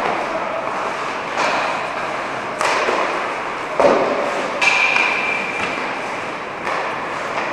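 Ice hockey pucks and sticks striking the ice and boards in a series of sharp knocks, the loudest about halfway through, over a steady wash of skates on ice. A brief high ringing tone follows one of the later knocks.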